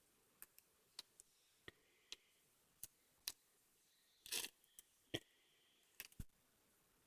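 Slime being played with, giving small irregular pops and clicks, with a longer crackle about four seconds in.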